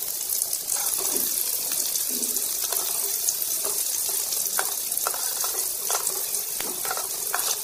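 Sliced onions sizzling in hot oil with cumin seeds, a steady loud hiss of frying. A metal spatula stirs and scrapes the pan now and then.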